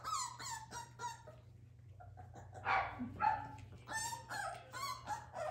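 Seven-week-old Cardigan Welsh Corgi puppy whining and yipping: a string of short, high-pitched cries, with a louder pair about three seconds in.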